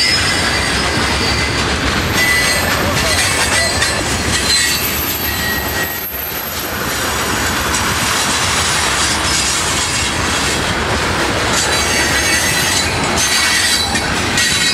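Freight train of covered hopper and tank cars rolling past close by: steady rumble of wheels on rail, with thin high-pitched wheel squeals coming and going.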